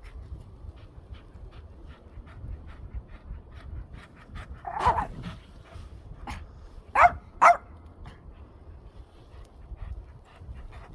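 Dogs playing, with quick breaths and small sounds throughout. One longer growling call comes about halfway, then two loud, sharp barks half a second apart.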